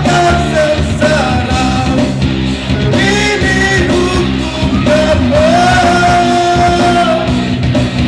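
A male singer singing a rock song over a backing band, holding a long note about five to seven seconds in.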